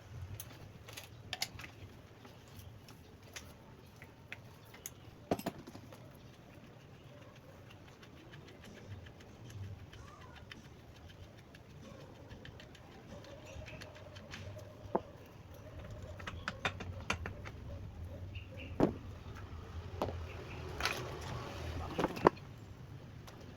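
Scattered clinks and light knocks of metal tools and parts being handled during shock absorber repair work, over a faint steady low hum. A few sharper knocks come in the second half, the loudest near the end.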